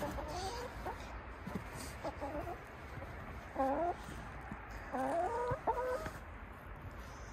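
Backyard hens clucking: a handful of short calls that rise in pitch, the loudest about three and a half and five seconds in.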